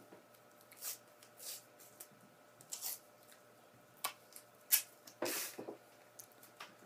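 Hockey tape being peeled off the roll and wrapped around the knob of a hockey stick: a series of short ripping rasps, a couple of sharp clicks, and a longer rasp a little past halfway.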